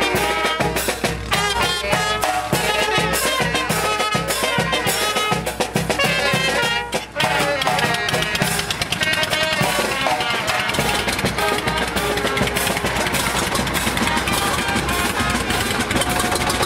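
Small brass band playing: trumpets and saxophones carrying the tune over a bass drum and snare drum beat. In the last few seconds the tune grows less distinct under a steady noise.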